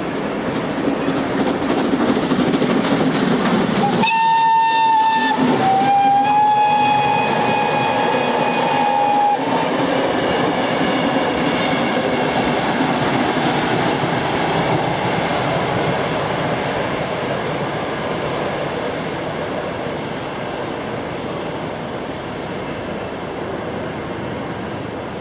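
Vintage steam train running past on the rails, its noise slowly fading as it draws away. About four seconds in, its steam whistle sounds twice: a short blast, then a longer one a little lower in pitch.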